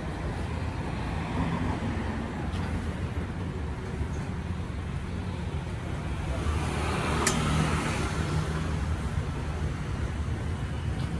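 Street traffic noise: a steady low rumble that swells as a vehicle passes past the middle, with one sharp click near the loudest point.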